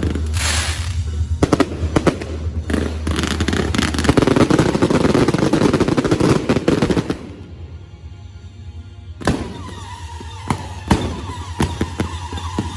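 Aerial fireworks going off: a rapid run of sharp bangs and dense crackling, easing to a brief lull about two-thirds of the way in, then scattered bangs again.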